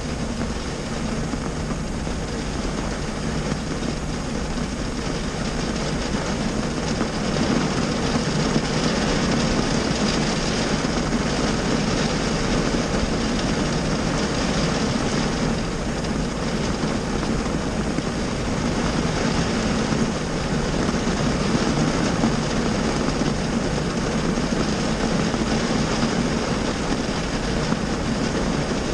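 Heavy rain drumming on the roof and windshield of a stationary car, heard from inside the cabin as a steady, dense hiss over a low rumble. It grows a little louder about seven seconds in.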